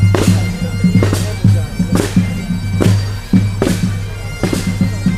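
Bagpipes playing a marching tune over their steady drones, with a drum struck in a steady beat about once a second.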